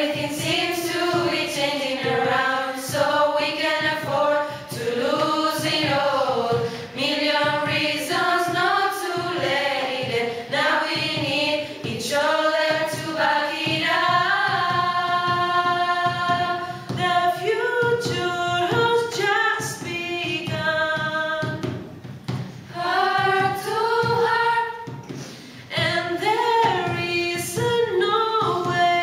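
A group of teenagers singing a pop song in English together as a choir, mostly on one melody line, with sustained held notes in the middle.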